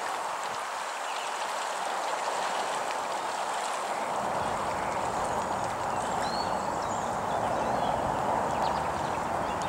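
Steady rushing hiss of an electric jet kayak's water jet and spray as it runs at speed along the river, with no distinct motor whine.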